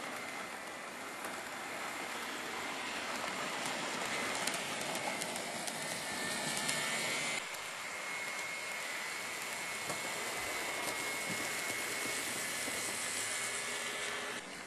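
Model train running on layout track: a steady high motor whine over the hiss and clatter of small wheels on the rails. The sound changes abruptly about halfway through and again near the end.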